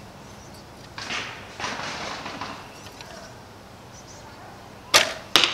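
A wooden self bow being shot: soft rustling as it is drawn, then a sharp crack of the string on release near the end and a second sharp knock about half a second later as the arrow hits the target.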